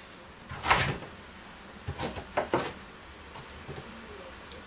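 Kitchen knife cutting through fresh ginger root onto a wooden cutting board: a few sharp knocks, the loudest about a second in, then three more close together about halfway through.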